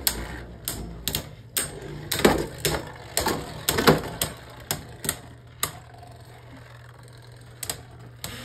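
Beyblade Burst spinning tops, Mirage Fafnir among them, battling in a plastic stadium: a rapid, irregular string of sharp plastic clacks as the tops collide. The clacks thin out for a couple of seconds past the middle, and a few more come near the end.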